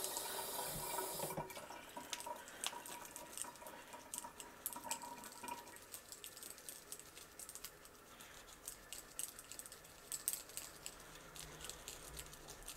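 Makeup brushes being rinsed under a running kitchen tap and scrubbed against a silicone cleaning mat in a stainless steel sink. The rush of running water drops away about a second and a half in, leaving quieter wet scrubbing, splashes and drips with many small irregular ticks.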